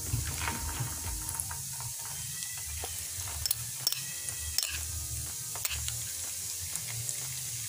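Hot oil sizzling steadily as egg-coated potato perkedel balls deep-fry in a frying pan. Several sharp clicks come through it, from the metal spoon used to lower the balls into the oil.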